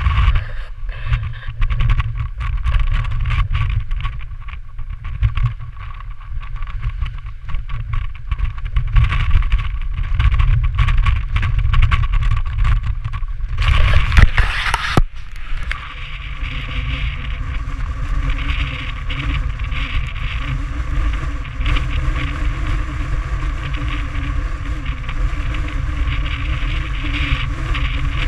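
Strong mountain wind buffeting the camera's microphone: a heavy, gusting low rumble with a loud hissing gust just before a sudden cut about fifteen seconds in, after which a steadier wind roar continues.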